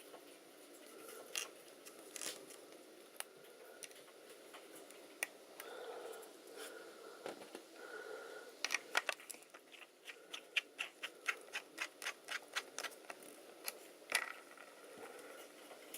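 Light clicks and scrapes of small parts and tools being handled as a wheel is fitted to a radio-controlled car's front stub axle. Just past halfway comes a run of quick, regular clicks, about four a second for some five seconds.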